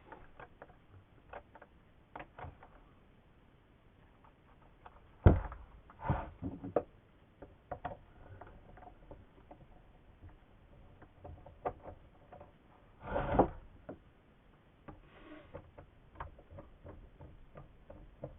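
Handling noises from taking apart a Homelite XL top-handle chainsaw: scattered clicks and taps of tools and saw parts, with louder knocks about five seconds in and again around thirteen seconds.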